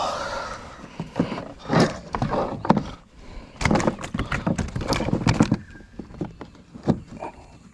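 Bass flapping on a measuring mat: two bursts of rapid slapping knocks, the second longer, with a few single slaps after.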